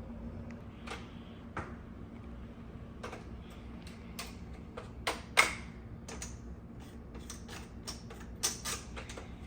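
Irregular clicks, snaps and short scrapes of hands working on a Shark vacuum cleaner's parts during a hair-clog fix, with the loudest snap about five seconds in and a quick run of clicks near the end.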